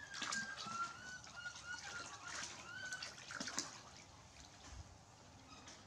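Water from a garden hose pouring and splashing into a plastic basin, with a few sharp splashes as a young macaque moves in the water. Thin, high squeaky chirps come and go in the first half.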